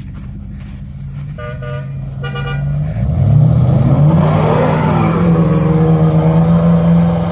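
An off-road 4x4's engine running, then revving up about three seconds in and holding at higher revs under load as the stuck vehicle tries to climb out on the tow rope. Two short toots sound about a second and a half in.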